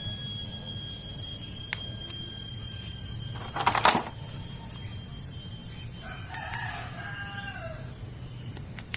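Quiet background with a steady high whine, a brief sharp noise about three and a half seconds in, and a faint drawn-out animal call lasting about a second and a half, about six seconds in.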